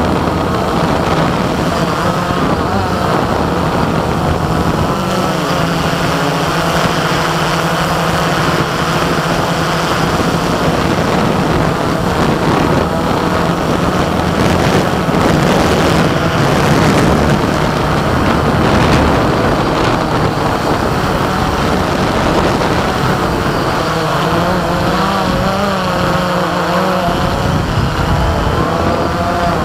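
XK Detect X380 quadcopter's motors and propellers humming steadily in flight, heard close up through the drone's onboard camera microphone. The pitch wavers up and down as the throttle changes.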